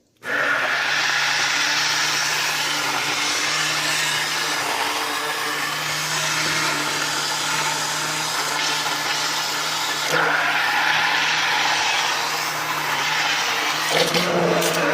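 Handheld electric blender switching on and running steadily, puréeing a pot of cooked lentils into a smooth soup.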